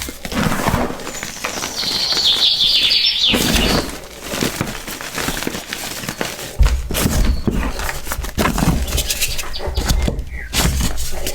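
Close, crispy, gritty crunching of a brittle block being crushed and crumbled by hand, in dense irregular crackles. Birds chirp outdoors, with a quick run of chirps a couple of seconds in, and a low rumble joins about halfway.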